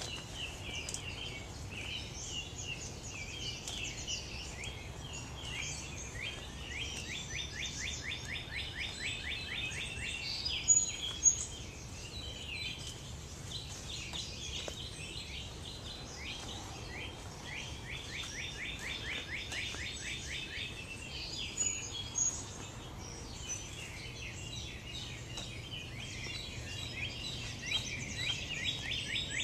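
Several small birds singing in a dawn chorus: fast trills of quick repeated down-slurred notes overlapping with scattered high chirps, and a few louder calls about eleven and twenty-two seconds in.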